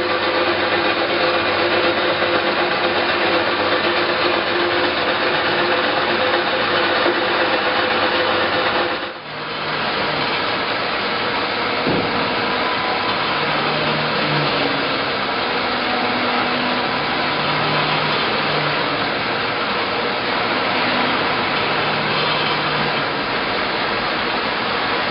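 Johnson Model J horizontal bandsaw running, its blade cutting through heavy metal stock with a steady grinding, rasping noise. The sound dips briefly about nine seconds in, then carries on.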